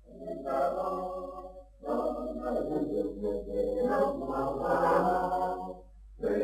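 A group of voices singing a chant-like song with no instruments heard, in long sustained phrases with a short break a little under two seconds in and another near the end.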